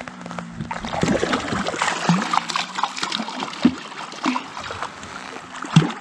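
A hooked sucker thrashing at the water's surface beside a small boat's hull as it is brought to hand: a run of irregular splashes, the loudest near the end.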